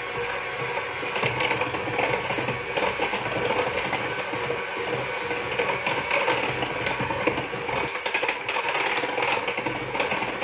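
Electric hand mixer running on low speed, its beaters churning flour into a thick brownie batter in a glass bowl; the motor sound is steady.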